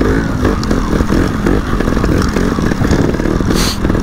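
Two-stroke enduro motorcycle engine working over rough ground, its pitch rising and falling as the throttle is opened and eased off, with a brief hiss near the end.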